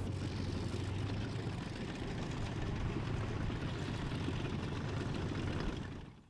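Tank engine running as the tank drives, a steady low rumble that fades out just before the end.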